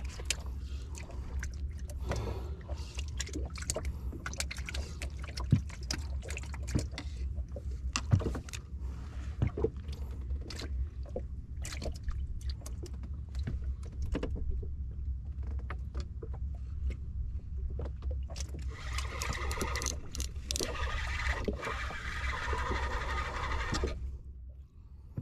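Water slapping against a small boat's hull, with a low wind rumble on the microphone and scattered knocks and clicks. About nineteen seconds in, a steadier sound with several held tones joins for about five seconds and then stops.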